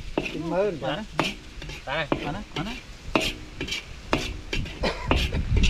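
A metal ladle stirring and scraping food frying in a steel wok, with a steady sizzle and repeated clinks of the ladle against the pan, about one a second.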